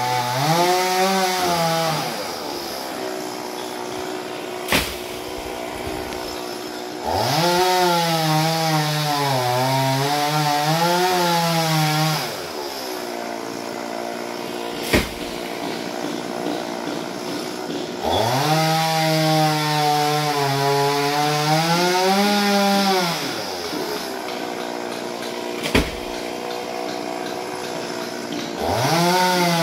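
Chainsaw cutting into a coconut trunk in repeated long passes of several seconds each, the engine pitch sagging and wavering under load, then dropping back to a steadier, quieter running speed between cuts. A brief sharp click sounds three times in the lulls.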